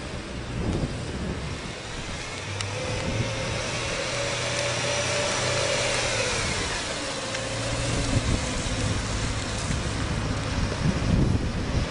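BMW M3 pickup's V8 engine running as the car drives slowly past and pulls away, its pitch rising and then falling about halfway through.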